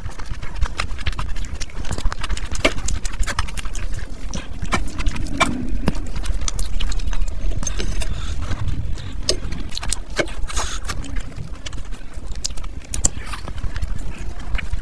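Close-miked eating: wet chewing and lip-smacking with many irregular sharp mouth clicks, as rice, curry and grilled meat are eaten by hand.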